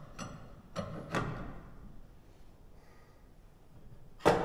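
Steel winding bars clinking against the winding cone of a garage door torsion spring as it is wound a quarter turn at a time, adding tension because the door still has weight to it. There are a few short metallic knocks in the first second or so, then a louder sharp clank near the end.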